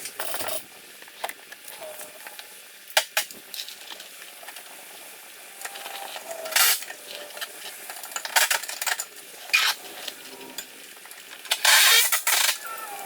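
Intermittent metallic clinks and scrapes of metal parts being handled, with a longer burst of rattling near the end.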